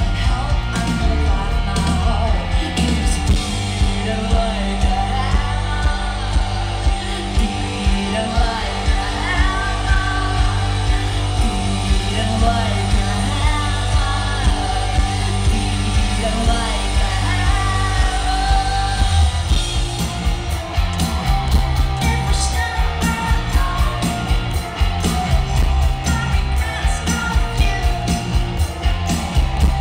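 Live rock band playing loudly through a concert PA, heard from the crowd: a woman singing over a heavy, steady beat of drums and bass, with guitar and keyboards.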